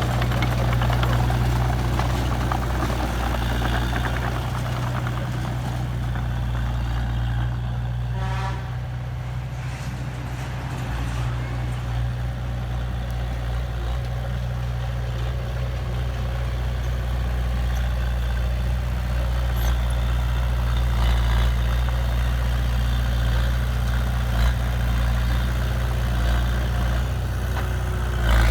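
Diesel engine of heavy earthmoving machinery running steadily, a low, even engine drone, with a short higher-pitched sound about eight seconds in.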